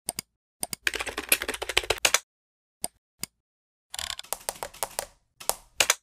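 Computer keyboard typing in two quick runs of key clicks, with a few single clicks between them and near the end.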